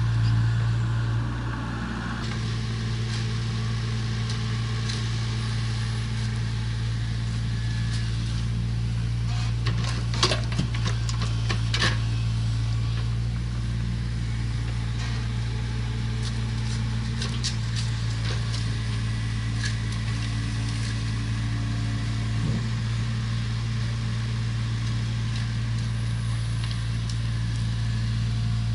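Diesel engine of a hydraulic excavator running steadily, with a cluster of sharp knocks and scrapes about ten to twelve seconds in.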